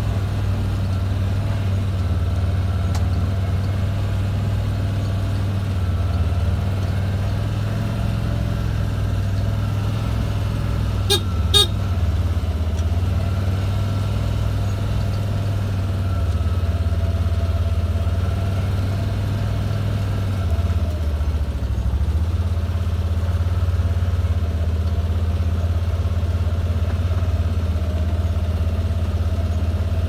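Farm vehicle engine running steadily at low speed, with a brief sharp double sound about eleven seconds in.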